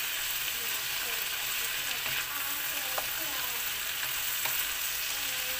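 Chopped vegetables sizzling in a hot wok as they are stir-fried, turned with a wooden spatula that knocks against the pan a couple of times.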